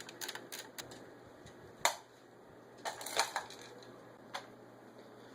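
Scattered sharp clicks from handling an airsoft rifle's magazine, a few near the start, the loudest about two seconds in and a short cluster around three seconds.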